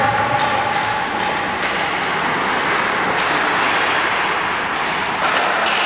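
Steady noise of an indoor ice rink, with skate blades scraping the ice and a few faint sharp clicks of sticks and pucks.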